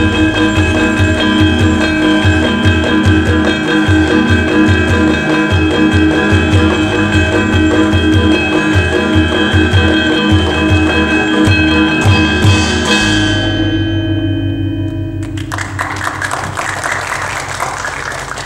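Javanese gamelan music: ringing metallophones and gongs over quick drum strokes. The drumming stops about two-thirds of the way in and the ringing tones die away, then an even, quieter noise takes over near the end.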